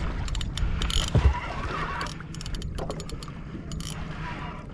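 Fishing reel ratcheting in quick, irregular clicks while a large shark is played on the line, with a low thump about a second in.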